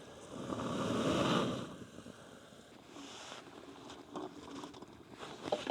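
A rush of air noise lasting about a second and a half, followed by faint scattered crackles and small clicks.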